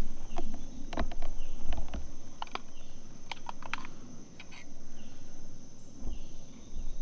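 Steady high-pitched insect chorus, with scattered sharp clicks and a few dull bumps from the camera rig being handled and turned.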